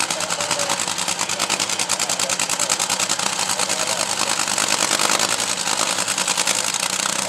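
Top Fuel dragster's supercharged, nitromethane-burning V8 idling at a steady pace, with a rapid, even chatter of firing pulses.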